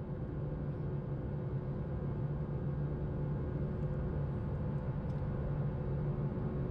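Airbus A320 cabin noise heard from inside the cabin: a steady low drone of the running engines and cabin air, with a couple of faint steady hums above it.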